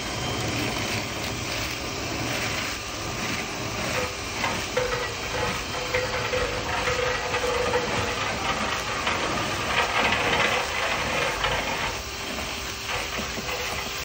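Dryer vent cleaning rod with a rotary brush spinning and rattling inside the duct, mixed with a steady rush of air blowing lint out of the vent hood, and a faint steady motor whine.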